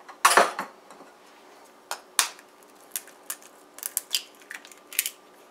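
Sharp taps and clicks of a table knife striking eggshells to crack eggs over a ceramic bowl, with the loudest tap about a quarter second in and a scatter of lighter clicks after it.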